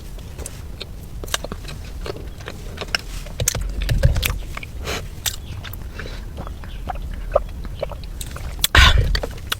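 Close-miked ASMR eating sounds of someone biting and chewing cake: many short wet clicks and smacks, with a louder burst near the end.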